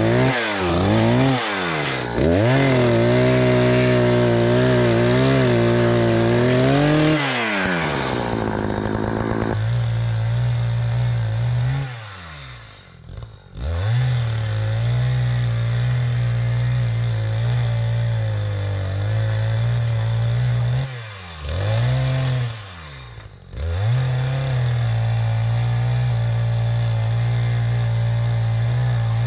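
Two-stroke chainsaw bucking dry ponderosa pine logs at full throttle, its engine pitch sagging and recovering as the chain bites. It drops back to idle a few times between cuts and revs up again.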